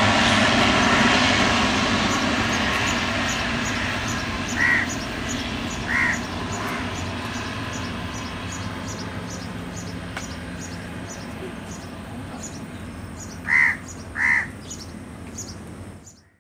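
Bombardier Dash 8-400 turboprop on its takeoff roll and liftoff, the steady drone of its propellers fading as it moves away. Crows caw four times over it, a pair a third of the way in and another pair near the end, and the sound cuts off abruptly at the very end.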